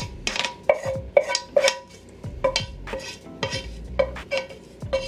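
A wooden spoon scrapes sautéed onion and bell pepper out of a skillet into a stainless steel mixing bowl, knocking against the metal about twice a second. Each knock leaves a short metallic ring.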